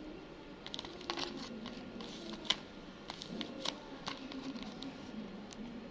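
Tape-covered paper bag crinkling and crackling as fingers handle and unfold it, with irregular sharp crackles; the sharpest comes about two and a half seconds in.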